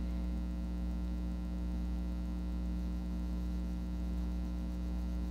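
Steady electrical mains hum: a low, even buzz with a ladder of overtones that holds constant, with nothing else standing out above it.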